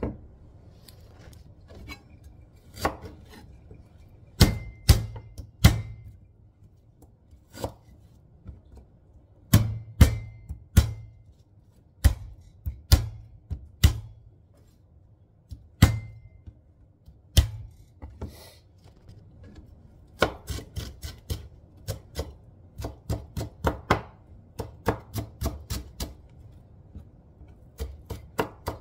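Chef's knife striking a cutting board: single sharp knocks spaced a second or more apart at first, then rapid mincing strokes at about three to four a second for the last third.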